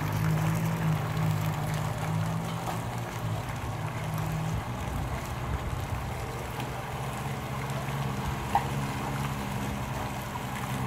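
Yamaha WaveRunner personal watercraft's four-stroke engine running at low speed, a steady hum with water churning; the engine note shifts a little about four and a half seconds in.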